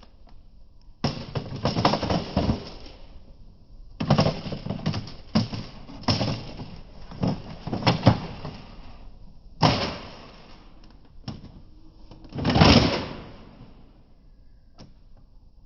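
Plastic clattering and clicking as foam rounds are loaded into a Nerf Rival Atlas blaster and the blaster is handled, in several short bursts, with a louder, longer rattle about twelve and a half seconds in.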